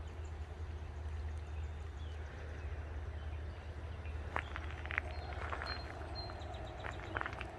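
Footsteps crunching on the ground, starting about halfway through as irregular steps, over a steady low rumble of outdoor background noise.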